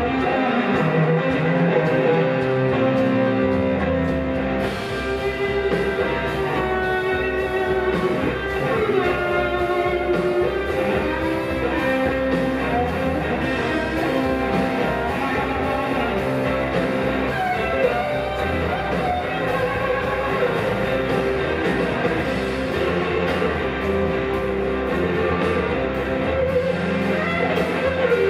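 Live blues-rock band playing: two electric guitars over drums, with bending, gliding guitar lines.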